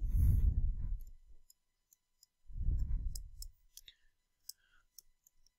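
Computer mouse clicking: a scatter of light, sharp clicks over a few seconds while words are handwritten letter by letter with an on-screen pen tool. Two louder low, muffled sounds come in the first half.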